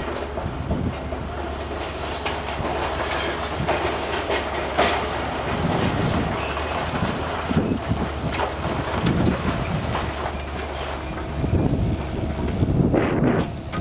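Heavy demolition machinery working: a steady low engine rumble with irregular knocks and clatter.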